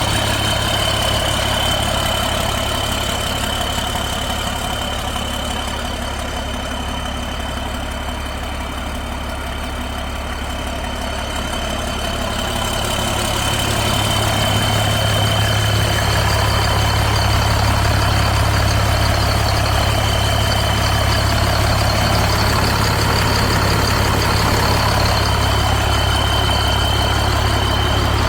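John Deere 4055's six-cylinder turbo diesel idling steadily through a straight pipe, with a thin high whine over it. It grows louder from about halfway through.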